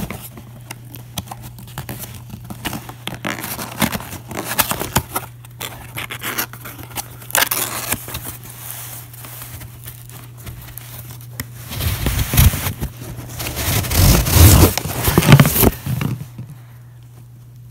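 Cardboard box being opened and rummaged through by hand: flaps scraping and crackling with small knocks, then louder rubbing and knocking a few seconds before the end as the contents are pulled out.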